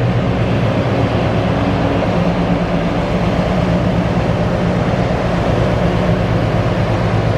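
DC Rail Freight Class 60 diesel locomotive passing close by, its engine running with a loud, steady low drone and a fast regular beat.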